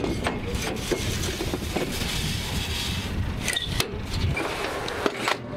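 Long metal rod scraping in and out of the launch tubes of a helicopter rocket pod, a rough rubbing with a few sharp knocks.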